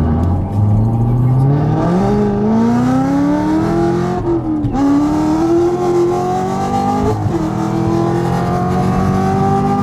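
Car engine accelerating hard through the gears in a rolling-start drag race. The revs climb steadily, with two upshifts about four and a half and seven seconds in, where the pitch dips briefly before climbing again.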